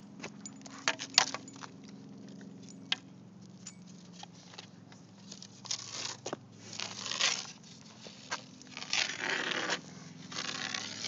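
A walking stick held in a Doberman's mouth knocking and scraping along the ground as he drags it: a few sharp knocks, the loudest about a second in, then several longer rasping scrapes in the second half.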